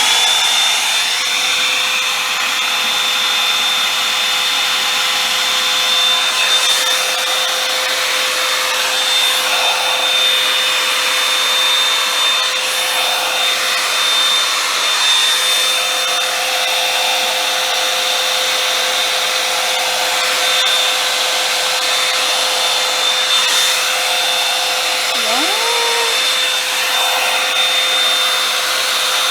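Hot-air dryer brush running steadily: rushing air with a steady high-pitched motor whine, as it is worked through a section of hair.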